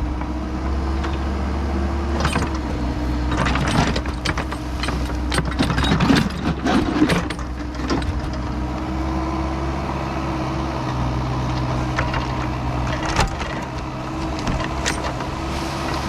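Kubota excavator's diesel engine running steadily under load, with a steady hydraulic whine that wavers slightly in pitch. Irregular clunks and scrapes from the bucket working the soil, most frequent in the first half and again near the end.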